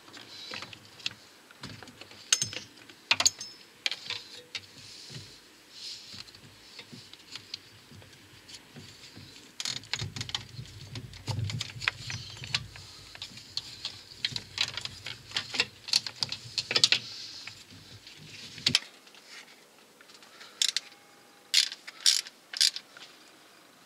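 Irregular clicks, clinks and light knocks of hand tools and metal engine parts being handled and fitted around the timing-belt end of a diesel engine, with a few sharper clicks near the end.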